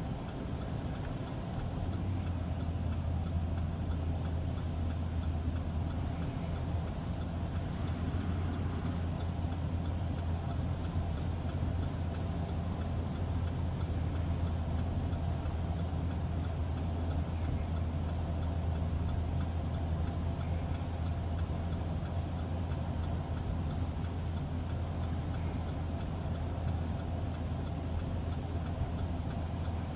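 Vehicle engine and road noise heard from inside the cab while driving: a steady low drone that gets louder about two seconds in.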